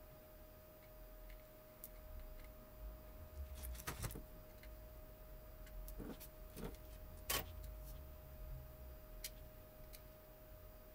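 Scattered light clicks and taps of tweezers and a soldering iron being handled on a circuit board, with a small cluster a few seconds in and the sharpest click a little past the middle, over a faint steady whine.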